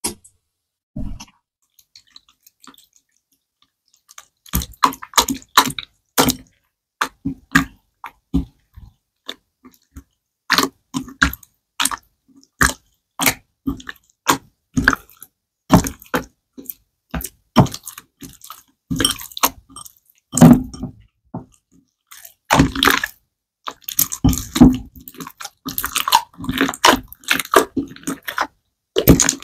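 Clear glitter slime squeezed and kneaded by hand in a glass bowl, making a run of short, irregular squelches and pops. The sounds start after a few nearly quiet seconds.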